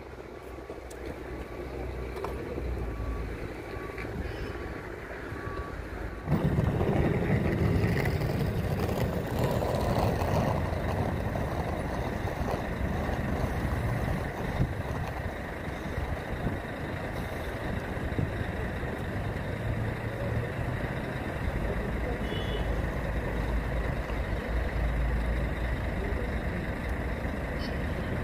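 A vehicle's reversing beeper sounds a regular series of short beeps at one pitch over low traffic noise. About six seconds in, a louder, steady vehicle rumble starts suddenly and carries on.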